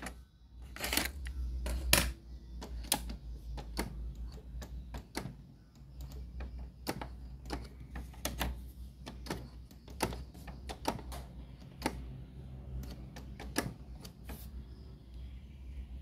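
Irregular light clicks and taps of handling and working on a Sanyo MW220K radio-cassette player, over a steady low hum.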